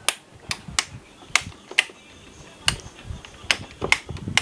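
A series of sharp clicks or knocks, irregular, about two a second, over a low background.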